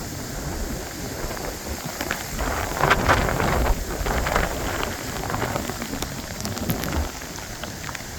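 A car driving past on a rain-soaked road, its tyres hissing through the water, swelling about two seconds in and fading away near the end, over steady heavy rain.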